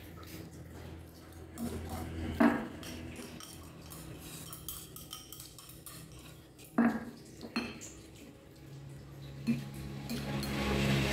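Chopsticks clinking against a ceramic rice bowl: four sharp clinks, spread out.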